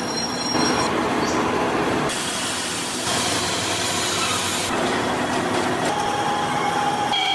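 Vertical lathe turning a large gear blank, the cutting tool shearing off long curling chips over a steady machine hum and grinding noise. The sound shifts abruptly several times.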